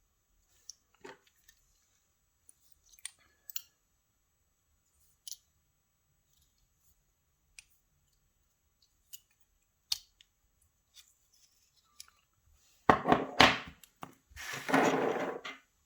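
Small metal clicks from a Euro cylinder lock being taken apart by hand, then near the end a few loud rattles and a longer, rough rattling noise as its parts are worked loose.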